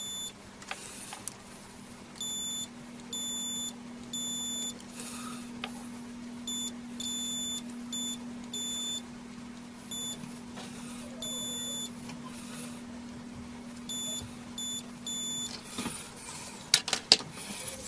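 Digital multimeter's continuity buzzer beeping on and off in irregular beeps, some short and some about a second long, as the test probes touch points on an instrument-cluster circuit board; each beep signals a connected path between the probes. A steady low hum runs underneath and stops a little before the end, and a few sharp clicks come near the end.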